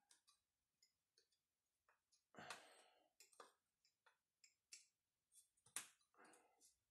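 Faint, scattered clicks and scrapes of a plastic grommet strip and a metal awl being worked into the string holes of a tennis racket frame. There is a louder scrape about two and a half seconds in and a sharp click near the end.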